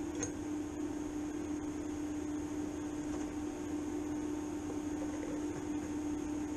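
Steady electrical hum with fan noise from a TIG welder that is switched on and idling, no arc struck yet. There is one light click just after the start.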